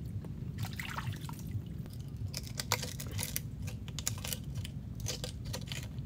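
Machete blade clicking and scraping against oyster shell as a mangrove oyster is pried open: irregular sharp clicks in small clusters.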